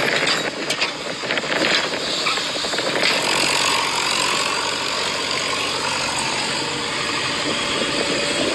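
Remote-control toy excavator at work on gravel, giving a steady engine-like running sound. A run of sharp clicks and scrapes fills the first three seconds, then the sound settles into a smoother, even noise.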